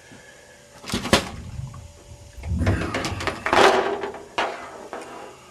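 Stiff plastic TV backlight sheet being flipped over and handled: a sharp knock about a second in, then a longer stretch of flexing, scraping plastic with a click near the end.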